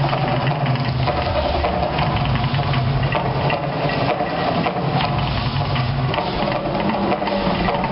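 Steady loud roar and hiss from the Mirage volcano's gas fire effects erupting, with irregular crackles through it.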